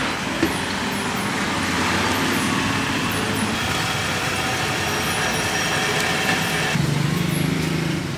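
Street traffic noise: motor vehicles running and passing. A lower steady hum comes in near the end.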